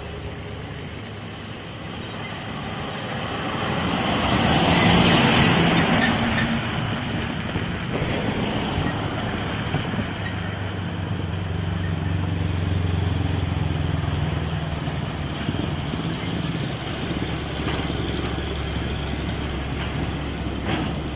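Road traffic with heavy vehicles. One vehicle passes loudly about five seconds in, then a large engine drones steadily for several seconds.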